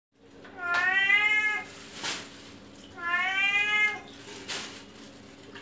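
Domestic cat meowing loudly for food, two long meows about two seconds apart, each rising in pitch and then holding.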